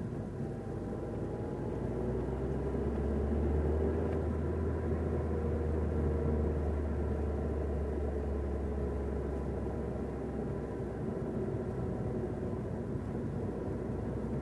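Car driving in third gear, heard from inside the cabin: engine and road noise with a low drone that swells about two seconds in and eases after about ten seconds, and an engine note that climbs a little and then settles. Any extra knocking noise is barely audible, as the driver says of third gear.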